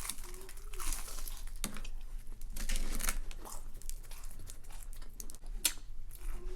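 Irregular crinkling and crunching with scattered short clicks, from eating crispy fried onion rings and pizza and handling paper or packaging.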